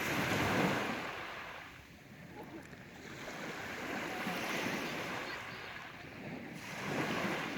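Sea waves washing onto the shore, the surf swelling and falling back three times, a few seconds apart.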